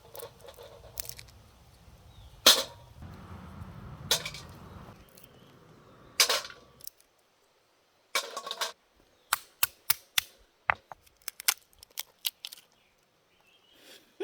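Walnuts being pounded to crush them: a few sharp cracks a couple of seconds apart, then a quick run of lighter clicks.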